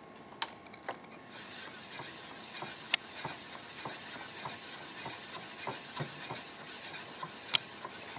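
Gray abrasive sharpening stone, wet with honing solution, sliding lengthwise along two speed-skate blades clamped in a sharpening jig: a steady scraping rasp of stone on steel that starts about a second in. Two sharp clicks stand out, one about three seconds in and one near the end.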